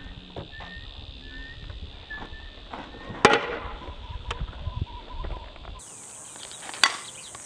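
A fastpitch softball bat striking a ball off a batting tee: a sharp crack about three seconds in, then a second crack near the end.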